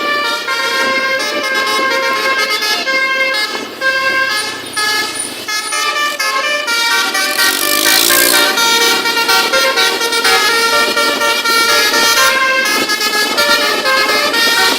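Telolet multi-tone air horn playing a melody of held notes that step from pitch to pitch. A short burst of hiss comes about eight seconds in.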